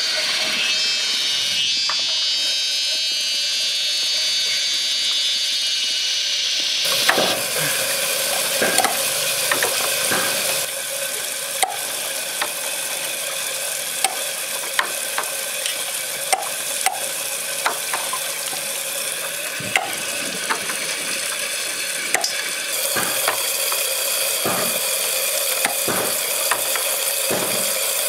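Tap water running and splashing into a plastic basin as snails are washed by hand; about seven seconds in, a cleaver starts chopping snails on a wooden block in single sharp knocks roughly once a second, over a steady hiss of water.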